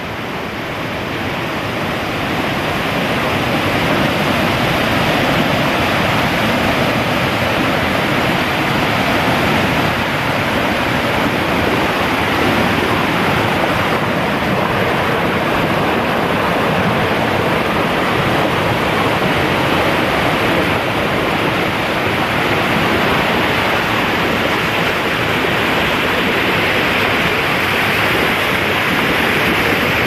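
Rushing water of a rocky forest stream cascading over stones: a loud, steady rush that swells in over the first few seconds and then holds even.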